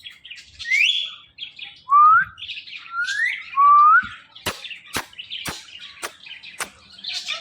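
Indian ringneck parrot whistling and chirping: four short rising whistles in the first four seconds over scratchy chirps, then a string of about six sharp clicks, roughly two a second.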